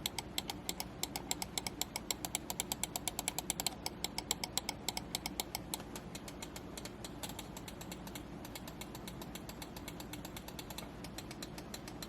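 Rapid, repeated clicking from the Ninjutso Origin One X wireless gaming mouse as its buttons are tested, many clicks a second, growing fainter about halfway through.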